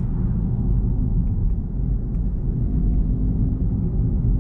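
Steady low rumble of road and engine noise inside a Smart ForTwo's cabin while it is driven along.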